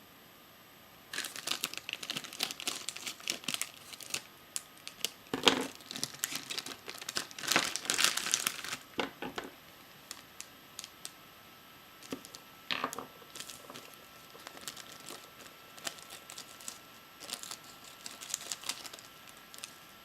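A mystery blind-bag packet crinkling and tearing as it is torn open and rummaged through by hand. It starts about a second in, comes in dense irregular bursts, loudest near the middle, and thins to scattered crackles later.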